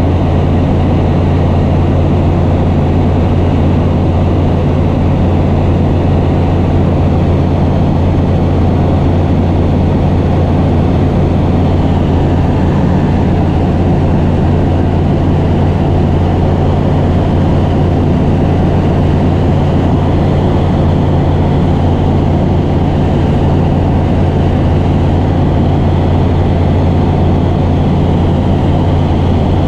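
Light aircraft's piston engine and propeller droning steadily in cruise flight, a constant low drone that does not change in level.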